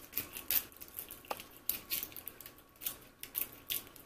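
Welch's fruit roll being unrolled and peeled from its backing sheet: a run of irregular short crinkles and crackles.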